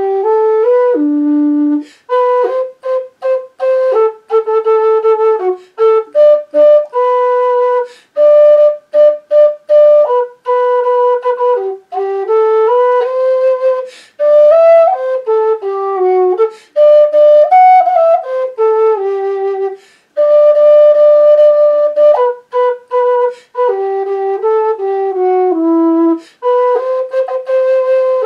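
Alba low D whistle played solo: a traditional tune of clear single notes, held and quickly changing, with short breaks between phrases.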